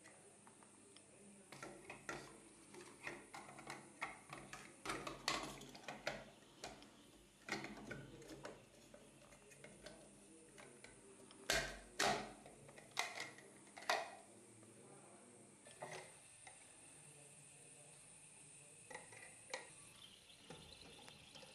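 Plastic parts of a Jacob Delafon toilet cistern's flush valve being handled and fitted together with their rubber seal: irregular light clicks and knocks. They are loudest a little past the middle, then thin out to a few faint clicks.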